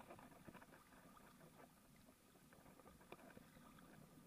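Near silence: faint water lapping and trickling along an inflatable kayak's hull, with a few small clicks, one a little stronger about three seconds in.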